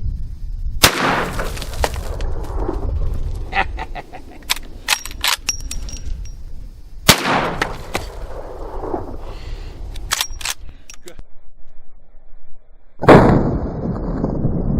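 Marlin Model 1894 lever-action rifle in .44 Magnum firing two shots about six seconds apart, each followed by a long echo, with quick clicking of the lever being worked between them. Near the end a loud sudden burst, followed by a steady rush of noise.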